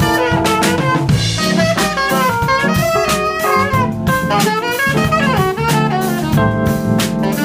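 Live jazz combo: a saxophone plays a moving solo line over a drum kit, with frequent drum and cymbal strokes and low bass notes underneath.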